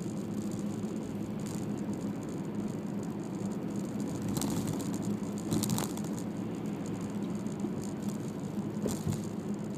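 A car being driven: steady engine and road noise, with a few short rattles or clicks partway through and near the end.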